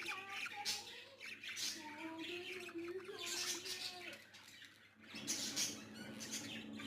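Baby budgies chirping and squawking in a run of short, harsh calls mixed with warbling glides, with a short lull about four seconds in before the calls start again.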